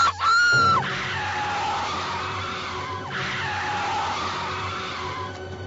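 Car tyres squealing in a skid over a low engine rumble: a loud, high squeal that rises and falls in the first second, then a long hissing skid with a wavering whine that fades near the end.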